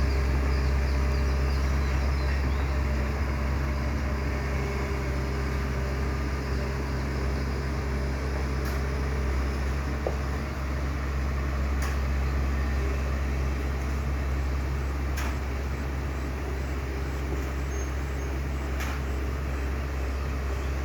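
Excavator's diesel engine running steadily, a deep even drone, with a few faint ticks over it.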